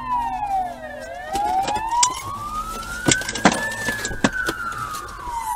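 Emergency vehicle siren wailing: its pitch slides slowly down, back up and down again. A few sharp clicks come about two to four seconds in.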